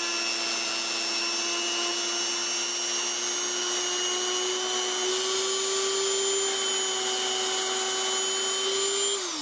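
Handheld rotary tool with a small buffing tip, polishing the steel hammer of a revolver. The motor runs at steady speed with a high whine, then winds down and stops near the end.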